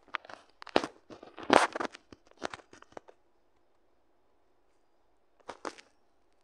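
Handling noise: a flurry of rustles and taps for about three seconds, then two more short taps about five and a half seconds in.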